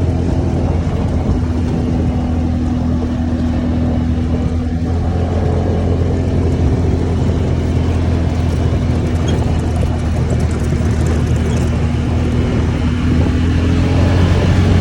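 Steady low drone of a motor vehicle running, with the engine note rising slightly near the end.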